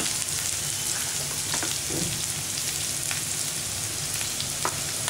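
Chopped onions, ginger and garlic sizzling in hot oil with a mustard-seed and dal tempering in a nonstick frying pan: a steady hiss with a few faint ticks.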